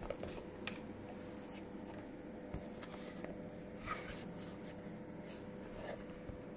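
Faint scuffs and small taps of a cardboard phone box being handled and turned over in the hand, a few scattered through the stretch, over a steady faint hum.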